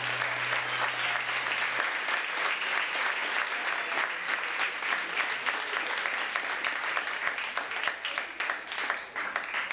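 Audience applauding a song's end, a dense spread of hand claps that thins out to scattered separate claps near the end. A low held note dies away about two seconds in.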